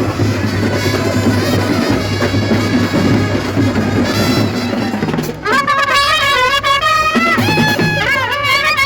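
Music: drums with brass instruments, and about five and a half seconds in a single wind instrument takes over with a bending, wavering melody.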